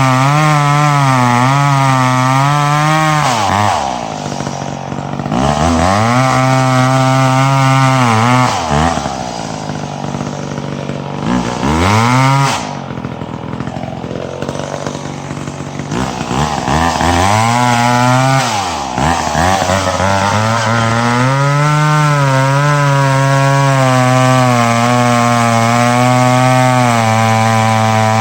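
Two-stroke chainsaw cutting dead ash wood, its revs wavering as the chain works under load. Twice the engine eases off to a lower speed for a few seconds, then it is throttled back up to full revs and keeps cutting.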